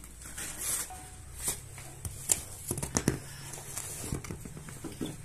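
Rustling of a cloth wrapper and crisp freshly baked flatbreads being handled and stacked, with a few sharp taps and clicks, the loudest about two and three seconds in.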